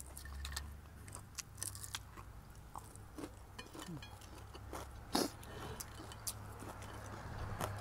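Close chewing and crunching of crispy fried dried fish, with scattered small crackles and clicks from fingers picking at the fish on the plate, and one sharper crack about five seconds in.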